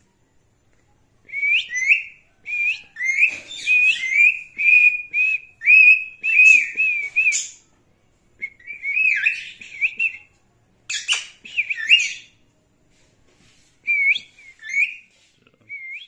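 Indian ringneck parakeet calling in quick runs of short, high chirps and whistles, with short pauses between the runs.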